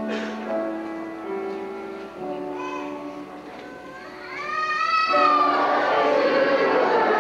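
Instrumental accompaniment playing held notes, then about five seconds in a children's choir comes in singing, louder than the introduction.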